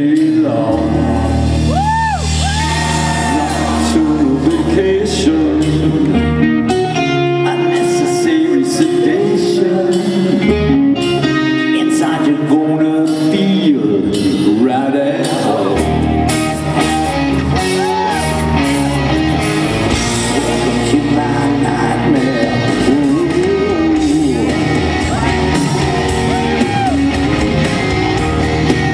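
Live rock band performing with a male singer, a full band with guitar under the sung vocal line.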